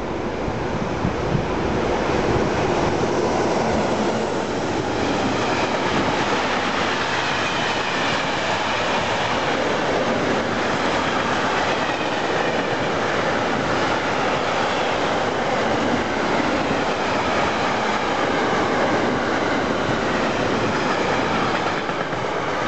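A long container freight train passing close by at speed: a steady rumble of wagon wheels on the rails that builds over the first couple of seconds, holds, and begins to ease near the end as the last wagons go by.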